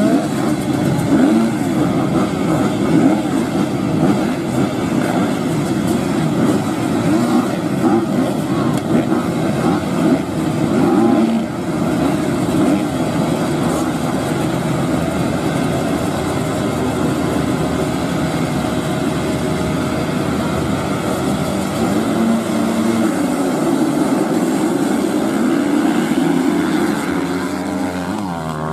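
A pack of motocross bikes revving their engines together at the start line, a dense, loud din of many engines at once, then accelerating away as the race gets under way.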